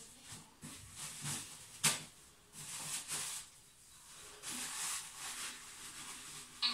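Toilet paper being pulled off the roll, torn and crumpled in the hands: a series of separate papery rustles, a sharper tear about two seconds in, and a short crisp snap near the end.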